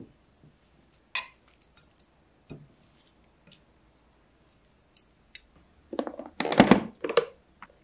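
Metal spoon tossing dressed carrot ribbons in a ceramic bowl: soft wet squishes and light clinks, a few at a time. About six seconds in comes a louder burst of clatter and rustling as a clear plastic snap-lock food container of lettuce is handled.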